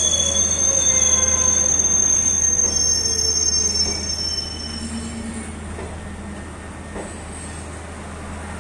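Passenger coaches rolling past along a platform, their wheels and brakes giving a high-pitched squeal over a rumble from the running gear. The squeal dies away and the sound gets quieter about four seconds in, leaving a steady low hum.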